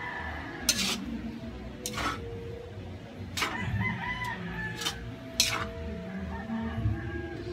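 Metal utensil clanking and scraping against a large metal wok as fried rice noodles are tossed, with sharp clanks about every second. Chickens cluck and a rooster crows in the background.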